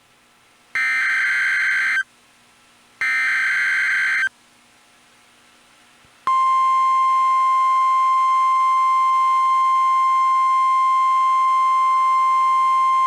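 NOAA Weather Radio alert signal: two more bursts of the raspy SAME digital header, each about a second and a quarter long with a second's gap, then from about six seconds in the steady 1050 Hz weather radio alarm tone. Together they announce a new alert, here a tornado watch.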